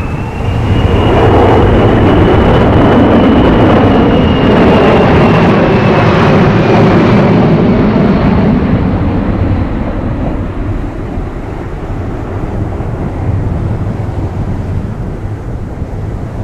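Boeing C-17 Globemaster III's four Pratt & Whitney F117 turbofans passing low overhead in a banking turn: loud jet noise with a high whine that rises slightly and then falls away. The noise eases off after about nine seconds as the aircraft flies away.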